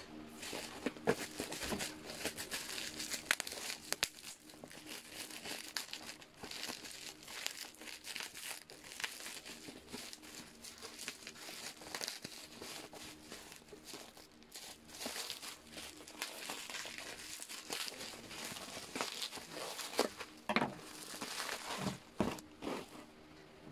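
Plastic bubble wrap crinkling and crackling as it is handled and pulled off a plastic food container, with many small sharp crackles throughout, easing off near the end.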